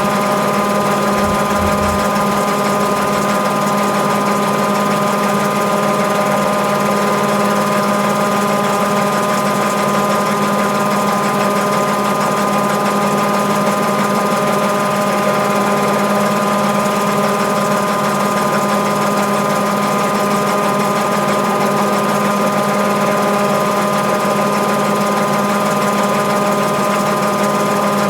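Mabe Aqua 18 kg washing machine in its spin cycle: the main motor driving the drum through the engaged transmission gears while the drain pump runs. It makes a steady hum with a constant whine.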